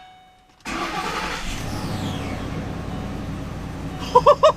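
Ford 5.4-liter Triton V8 starting about a second in, its first start after a timing chain replacement, then idling steadily. The exhaust manifolds tick as it runs, which the owner takes to be normal for now.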